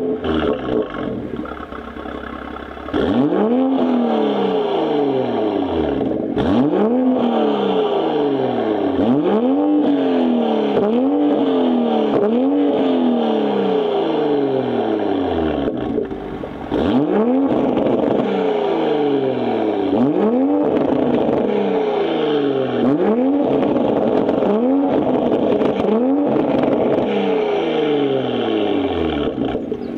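BMW M340i's 3.0-litre turbocharged B58 inline-six breathing through an AWE Resonated Touring Edition exhaust with an aftermarket downpipe. It idles for about three seconds, then is blipped again and again, each blip a quick rise in revs that falls away, roughly one every second and a half, with a short break about halfway through. It settles back to idle near the end.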